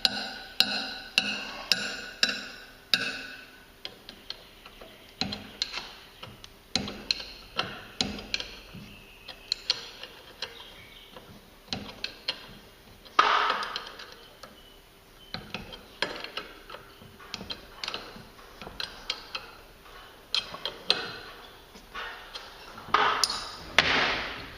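Metal tools clinking and clanking on a garage door's torsion spring hardware: a quick run of ringing metallic knocks at first, then scattered clicks and a few louder ringing clanks, about halfway through and near the end.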